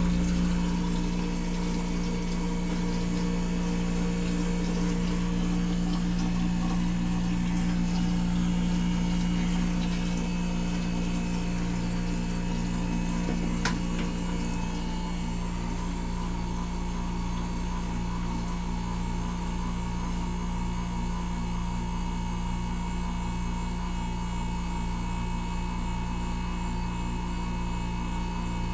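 SY604A ice machine running steadily, its compressor humming and its water pump circulating water, with one sharp click about 14 seconds in. The condenser fan is not running because its motor is seized, the fault that drives the machine to a high-pressure cutout.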